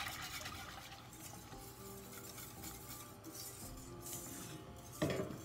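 Wire whisk clinking and scraping rapidly against the inside of a stainless steel saucepan, with one louder knock of metal on metal near the end. Background music plays throughout.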